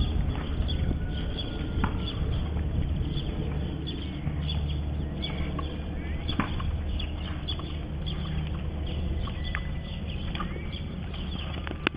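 Horse cantering, its hoofbeats soft and muffled among scattered clicks, over a steady low rumble, with a few short bird chirps.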